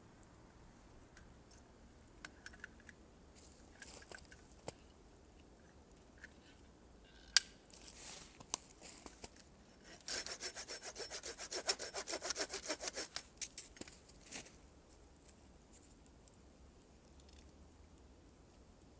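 Small hand saw cutting through a dry stick in a quick run of short, even strokes lasting about three seconds. A single sharp click comes a couple of seconds before the sawing.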